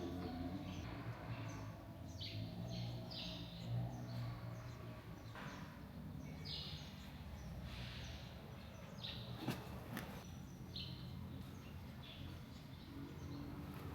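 Birds chirping faintly and intermittently with short, scattered calls over a low steady hum. Two sharp clicks come close together about halfway through.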